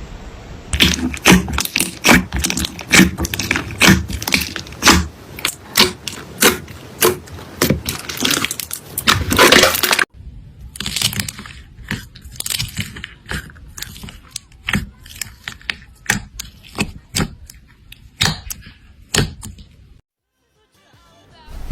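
Slime being squeezed and poked, giving a fast run of sharp crackling pops and clicks; the sound cuts off suddenly about ten seconds in, resumes more sparsely, and drops out briefly near the end.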